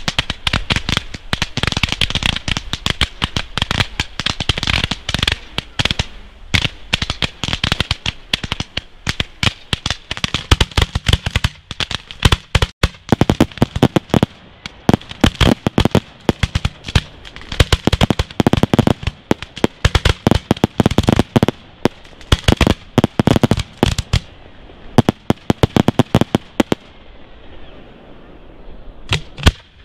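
Fireworks display: a dense, rapid barrage of bangs and pops from rising comets and aerial shell bursts. It thins out about 27 seconds in, leaving a couple of last bangs near the end, as the closing salvo of the show.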